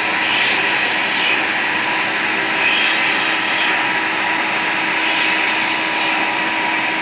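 CNC router spindle running at 20,000 rpm while milling a sub plate flat, with a dust collector running: a steady whine under a cutting hiss that swells and fades about every two and a half seconds.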